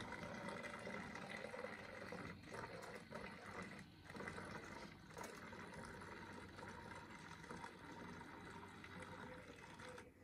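Strained garlic water poured from a saucepan into a plastic bottle, a faint, thin, steady trickle as the bottle fills.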